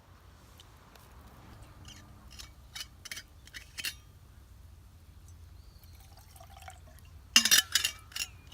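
Liquid dripping and camp cookware clinking: a few light taps, then a quick cluster of louder ringing clinks near the end.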